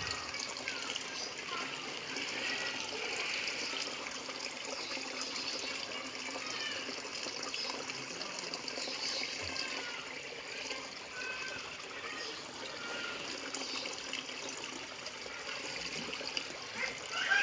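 Steady running water trickling and splashing, with faint voices in the background.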